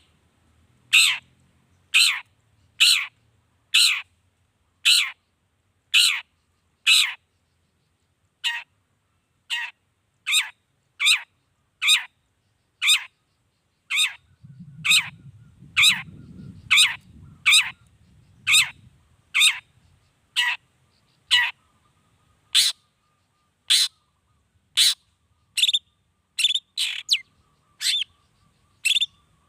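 Long-tailed shrike (cendet) calling over and over, each call a short harsh note falling steeply in pitch, about one a second; near the end the calls come quicker, some in quick pairs.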